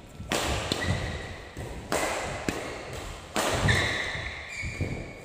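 Badminton rackets striking a shuttlecock in a rally: three sharp hits about a second and a half apart, echoing in a large hall, with short squeaks of court shoes between them.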